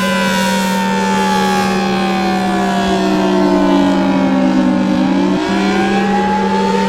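Outdoor tornado warning siren wailing: its pitch slides slowly down for about five seconds, then starts climbing again, over a steady low hum.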